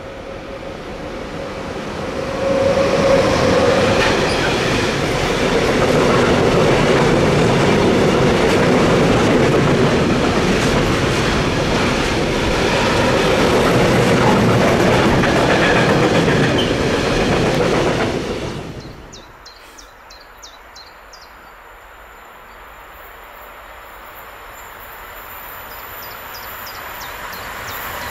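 A train passing close by on the track: the steady rumble and clickety-clack of wheels over the rails, loud for most of the time. About two-thirds of the way through it drops away abruptly, and then another train is heard growing steadily louder as it approaches.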